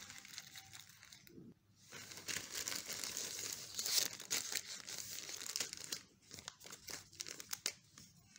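Plastic courier mailer bag crinkling and being torn open by hand. The crackle is loudest from about two seconds in until about six seconds, then thins to lighter rustling of plastic.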